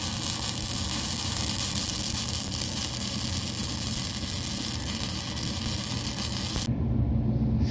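Wire-feed arc welding with self-shielded flux-cored wire: a steady crackling hiss that cuts off near the end as the arc stops. A low engine hum runs underneath.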